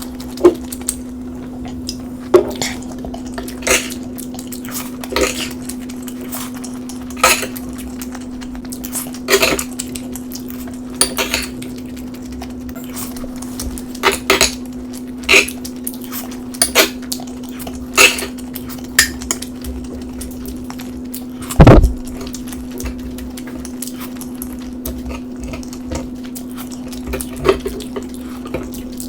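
Cutlery clinking and tapping against a plate while eating, in sharp irregular clicks every second or two. A steady low hum runs underneath, and one heavier knock comes about two-thirds of the way through.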